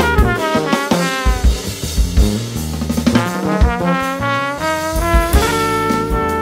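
Live jazz band: a trumpet plays a quick run of notes and settles into a long held note near the end, over electric bass and drum kit.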